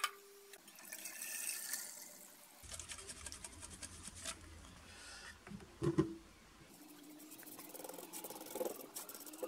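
Liquid poured from a stainless steel saucepan into a plastic tub, with one loud knock about six seconds in. Then a brush scratching as it works the liquid onto wood.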